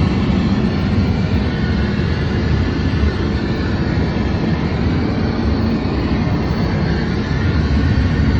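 Boeing 777 jet engines and airflow heard inside the economy cabin: a steady, loud low rumble with a hiss above it.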